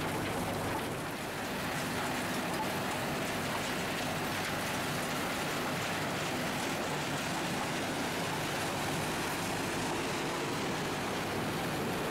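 Scrap-metal shredding line running: conveyor belts carrying shredded car scrap, heard as a steady dense noise with a low machine hum underneath.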